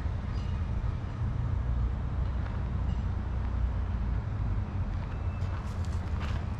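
Steady low outdoor rumble, with footsteps on a paved path starting again near the end.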